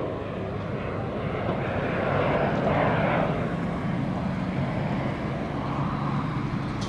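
Pilatus PC-9 turboprop trainer in flight, its Pratt & Whitney Canada PT6A engine and propeller making a steady low hum under a broader rushing note. The sound swells a little about two to three seconds in, then eases as the aircraft flies on.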